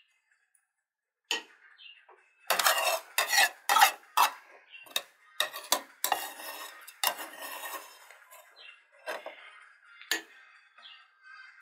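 Metal spoon scraping and clinking against a bowl and a glass plate as sticky cookie batter is scooped out and dropped into mounds. The clinks start about a second in, come thick and sharp for several seconds, then thin out near the end.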